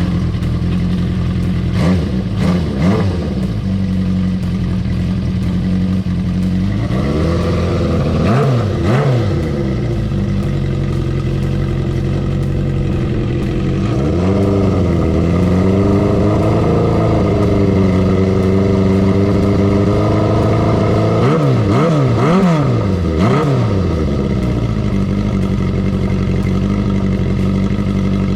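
Honda CB400Four's inline-four engine idling through a Yoshimura short exhaust whose silencer has just been repacked with glass wool. The throttle is blipped several times: quick rev rises and falls a couple of seconds in, again around eight seconds, and a cluster of three past the twenty-second mark, with a slower dip and rise in between.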